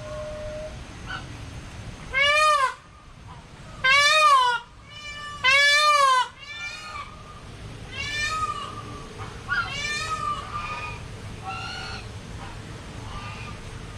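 Large birds calling: three loud nasal calls, each rising and falling in pitch, about two, four and five and a half seconds in, followed by fainter calls of the same kind.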